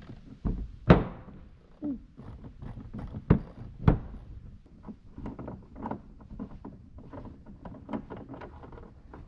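Sharp metallic knocks and clinks of hand tools and bolts being handled while unbolting an ATV fender, the three loudest about one, three and four seconds in, followed by a run of small quick clicks and rattles.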